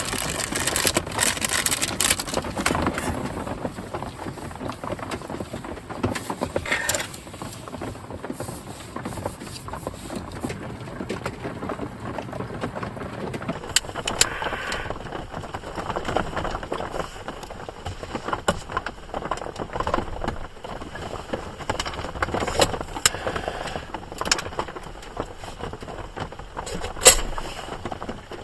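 Rain falling steadily on a tarp and a van, with scattered knocks and handling sounds; one sharp knock near the end is the loudest.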